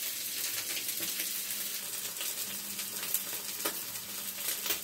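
Hot cooking oil frying: a steady sizzle with scattered crackles and pops.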